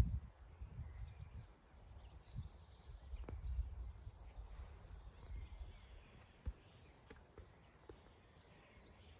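Wind buffeting the microphone as a low, gusty rumble, strongest at the start and easing after about a second, with a few faint clicks and high chirps.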